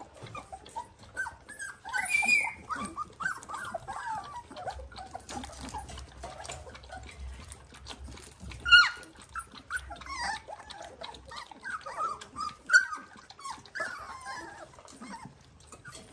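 A litter of 22-day-old Dalmatian puppies squeaking and whimpering: many short, high cries throughout, with one sharper, louder squeal about nine seconds in.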